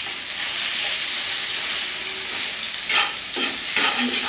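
Rice frying in oil in a pan, a steady sizzle, with the spatula scraping and stirring through it in several short strokes from about three seconds in.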